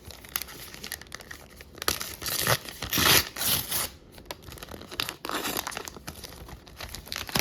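A hockey card pack's wrapper being torn open and crinkled, with the rustle and light clicks of cards being handled; the loudest tearing and crinkling comes in bursts a couple of seconds in.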